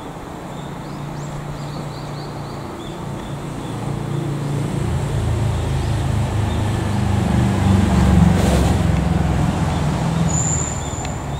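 A motor vehicle passing close by: its low engine rumble swells to a peak about eight seconds in, then fades. A brief high squeal comes just after the loudest point.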